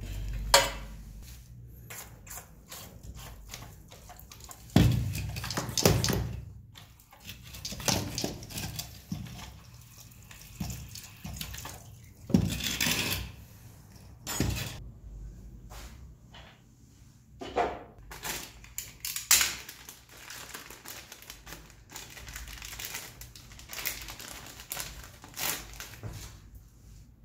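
Engine oil draining from a Suzuki GSX-R1000 into a plastic drain tray: irregular splashing and dripping in bursts, a few of them louder.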